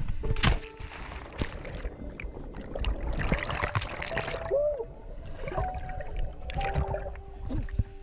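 A splash as a jumper carrying the camera hits the water about half a second in, then bubbling, gurgling and sloshing right at the microphone as it goes under and comes back up to the surface.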